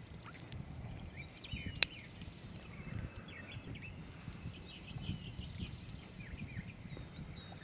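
Faint outdoor ambience: birds chirping and trilling in the background over a low rumble, with one sharp click a little under two seconds in.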